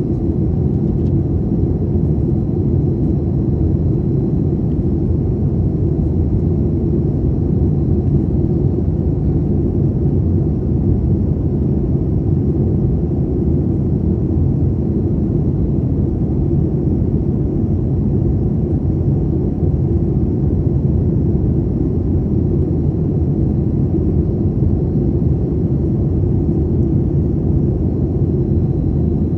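Steady low drone of engines and airflow inside the cabin of a Boeing 737 in flight, unchanging throughout.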